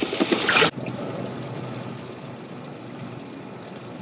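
Brief splashing and sharp knocks, then a steady rush of water noise.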